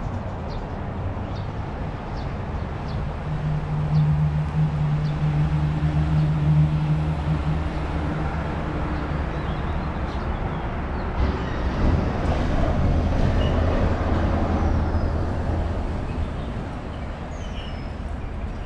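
Road traffic with a heavy vehicle's engine running, a low steady drone that swells through the middle and fades toward the end. A few faint bird chirps come near the end.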